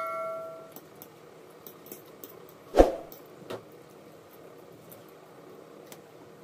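A subscribe-button animation's bell chime fading out in the first second, then a single knock about three seconds in and a softer one half a second later. Faint clicks of forks on metal plates sound between them.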